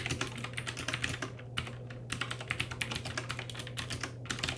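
Typing on a Lofree wireless mechanical keyboard with round, typewriter-style keycaps: a rapid stream of clacky key clicks, broken by two short pauses.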